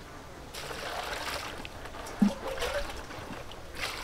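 Water poured from a metal bowl into a large aluminium basin of green onions, splashing and trickling, with one sharp knock about two seconds in.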